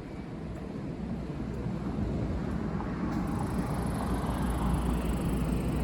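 Keio Line electric train approaching, its rumble growing steadily louder, with a faint high hiss joining about three seconds in.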